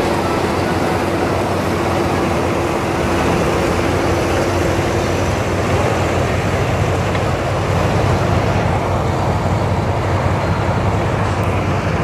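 Bakhsish 930 combine harvester running while cutting wheat: a steady engine drone mixed with the noise of the header and threshing machinery. A thin steady whine sounds over it and fades out about five seconds in.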